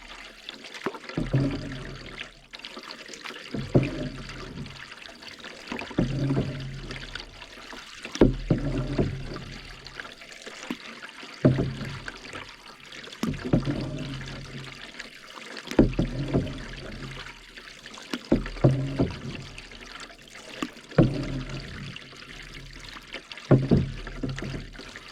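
Canoe paddle strokes, about one every two and a half seconds, each with a sharp catch and a swirl of water, and water trickling off the blade in between.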